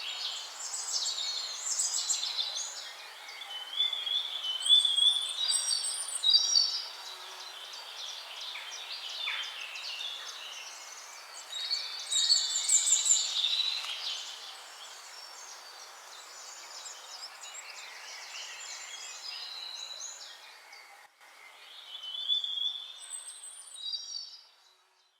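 Several songbirds singing together, a busy overlapping chorus of short whistled phrases and chirps over a steady background hiss. It fades out near the end.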